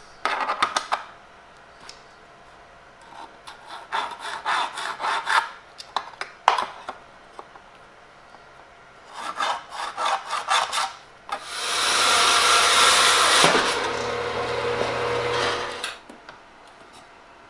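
A printed circuit board being scored and cut: several short runs of rapid scraping strokes, then about four seconds of louder continuous sawing with a steady low hum underneath.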